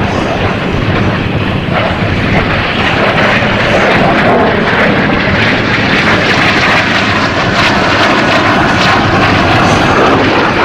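Jet noise from the Snowbirds' Canadair CT-114 Tutor turbojet trainers flying their display. The steady roar grows louder about three seconds in and stays loud.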